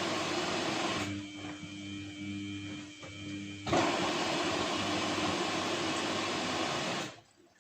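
Samsung WF1600WCV front-loading washing machine running with a steady whirring noise. A quieter stretch in the middle carries a steady motor tone and a pulsing low hum. The sound cuts off suddenly near the end.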